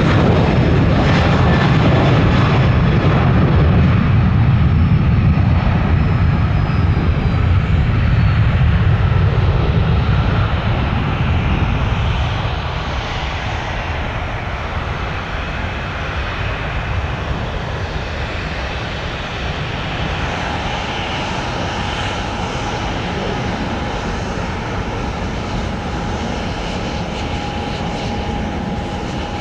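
Jet airliner engines running loud for the first ten seconds or so, then fading to a lower, steady rumble. A thin, steady whine comes in during the second half.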